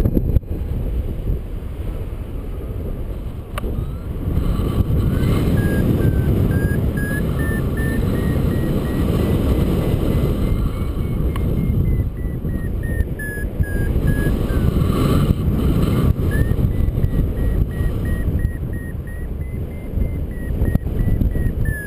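Paragliding variometer beeping in short, quick chirps whose pitch rises and falls, the climb tone signalling rising air. It breaks off briefly twice, over steady wind rush on the microphone from the glider's airspeed.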